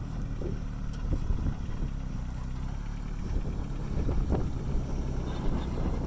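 A vehicle engine running steadily at a low, even pitch, with a few light knocks over it.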